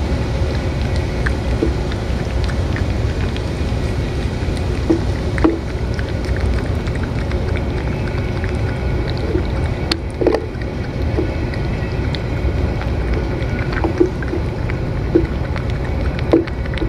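Cat eating wet food from a metal dish, with scattered short wet smacks and licking clicks, over a steady low background rumble.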